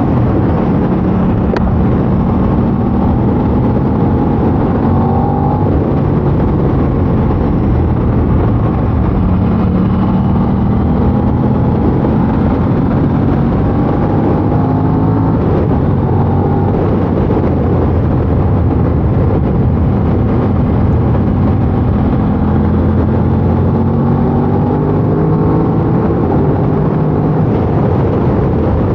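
Aprilia RS660's 659 cc parallel-twin engine through its stock exhaust, under way and pulling through the revs: its pitch climbs steadily in several long pulls and drops back between them.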